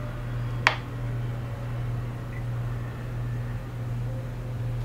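Steady low hum, with one sharp click a little under a second in.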